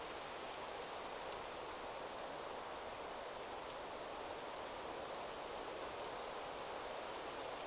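Steady wind rustling through forest trees, with a few faint high chirps now and then.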